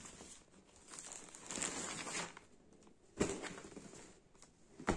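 Clothes and packaging being handled: rustling and crinkling, with two sharp knocks in the second half.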